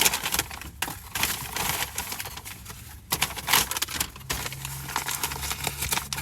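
Paper bag and sandwich wrapper rustling and crinkling in irregular bursts as a fast-food chicken sandwich is handled and unwrapped. A low steady hum comes in about four seconds in.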